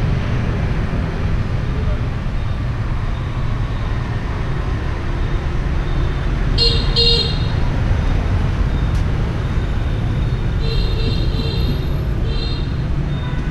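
Street traffic rumbling steadily as motorbikes and cars pass, with short vehicle horn toots: a double toot about halfway through and a quick run of beeps near the end.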